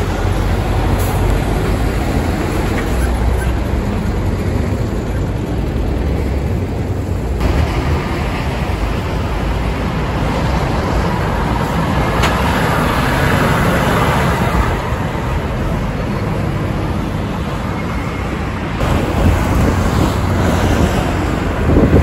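Heavy semi-trailer tractor units, an Isuzu Giga and Volvo FH trucks, pulling through road junctions, their diesel engines running under load over surrounding traffic noise. The sound changes abruptly twice as one truck's clip gives way to the next.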